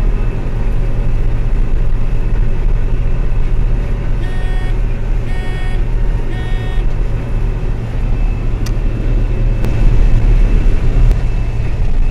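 Combine harvester engine running steadily with a low rumble, heard from inside the cab. About four seconds in, three short electronic beeps sound, a second apart.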